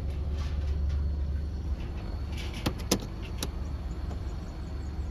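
Steady low hum of a car's running engine heard from inside the cabin, with a few sharp clicks about halfway through.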